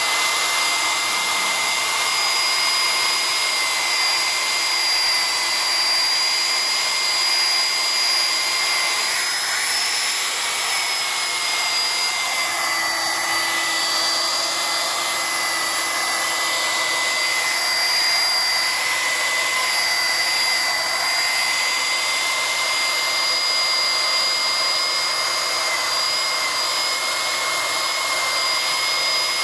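Black+Decker angle grinder running steadily with a buffing pad pressed against an acrylic panel, polishing it: a constant high motor whine whose pitch sags slightly about ten to twelve seconds in before steadying again.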